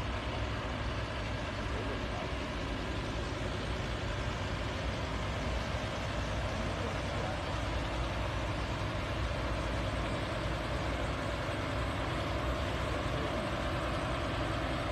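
Several MAN heavy-haulage tractor units pulling a long, heavy load at crawling speed, their diesel engines running steadily with a deep low rumble that grows slowly louder as the convoy approaches.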